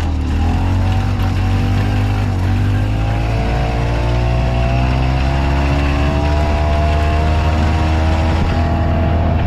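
Harley-Davidson gas golf cart engine running steadily while driving, its pitch rising gradually through the middle of the stretch as it speeds up.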